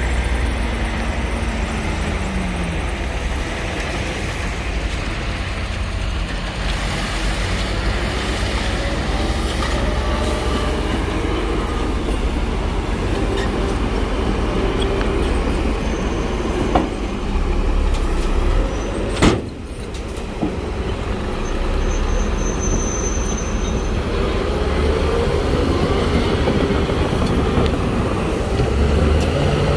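Heavy diesel earthmoving machinery running under load, a continuous deep engine rumble. There is a sharp click and a brief drop in level about nineteen seconds in.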